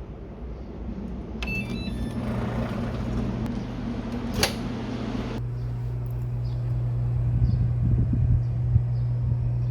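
A kitchen appliance beeps as it is switched on, then runs with a steady low hum. One sharp click comes about halfway through.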